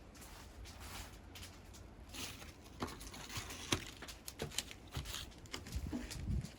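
Irregular knocks, clicks and rustling of debris being handled and moved about, with footsteps. The sounds come more often from about two seconds in, with a heavier low thud near the end.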